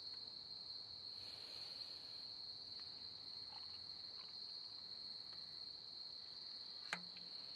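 Crickets trilling in one steady, unbroken high-pitched tone, with a single sharp click near the end.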